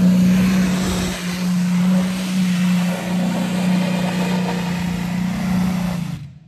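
A pulling tractor's engine running flat out on a pull down the track: a loud, steady, deep drone with a noisy blast over it, easing off a little, then cutting off suddenly near the end.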